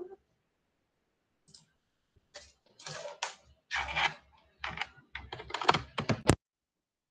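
An irregular run of clicks and knocks close to a laptop microphone, like hands on a computer keyboard and desk. It starts about a second and a half in and ends with a sharp click near the end.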